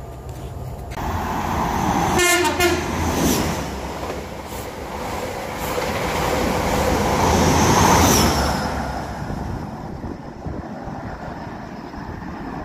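LNER Azuma high-speed train passing through a station platform at speed, with a short horn blast about two seconds in. The rush of the passing train is loudest about two to three seconds in and again near eight seconds, then dies away.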